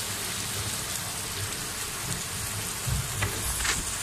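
Sliced onions and tomato masala sizzling in hot oil in a non-stick karahi, a steady hiss, while a spatula stirs them. There are a few light knocks and a scrape about three seconds in.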